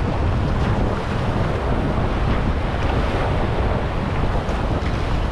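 Steady wind buffeting the microphone over waves washing against jetty rocks.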